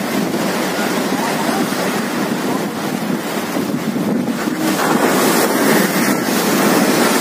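Storm wind buffeting the microphone over the rush of rough sea waves breaking against and surging over a sea wall. The sound changes abruptly and gets louder about two-thirds of the way through.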